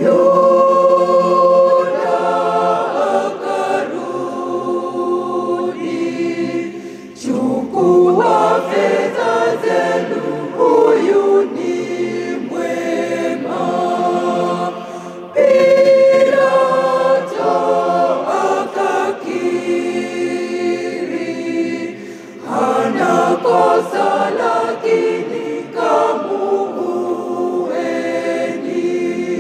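Mixed church choir of men and women singing a Swahili hymn. The voices come in loudly at the start and sing in long phrases with short breaks between them.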